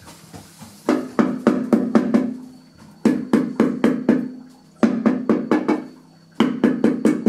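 Ceramic floor tile being tapped down into its mortar bed to bring a high edge level: four bursts of quick knocks, about five a second, each burst with a low ring under it.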